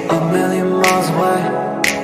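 Background pop music with a slow beat, a drum hit about once a second over held instrument notes.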